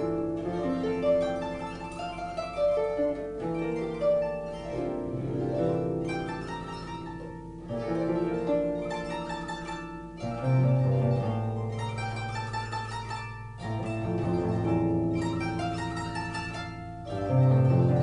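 Harp music: a melody of plucked, ringing notes over deeper bass notes, with strong low notes entering about ten and seventeen seconds in.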